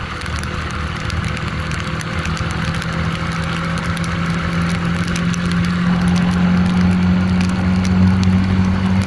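A 150 cc Yamaha single-cylinder motorcycle engine running steadily at cruising speed, under a steady rush of wind and road noise. The engine note grows louder over the second half.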